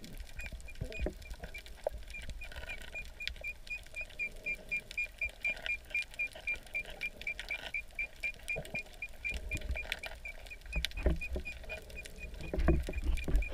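Underwater sound heard with the microphone submerged: a regular series of short high chirps, about four a second, over muffled water movement and scattered knocks that grow louder near the end.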